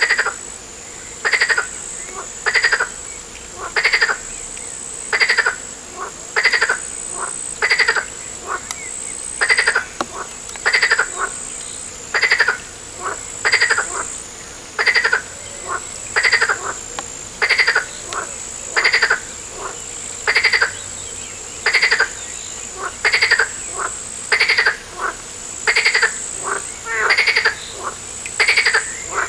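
A frog croaking over and over in an even rhythm, one short call about every second and a quarter, with a steady high-pitched whine behind it.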